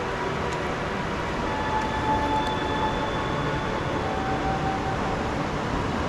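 Steady rushing noise of wind and surf on an open beach, with no distinct single event standing out.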